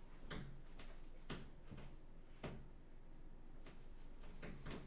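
A few faint knocks and clicks, about two a second at first and then more spaced out, over quiet room tone.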